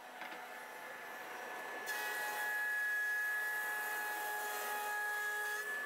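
Axminster Professional planer thicknesser running with a steady whine. About two seconds in, a hardwood square is fed over the cutter block on the surface-planing tables, and a louder cutting hiss with a higher whine sets in, lasting nearly four seconds until the cut ends.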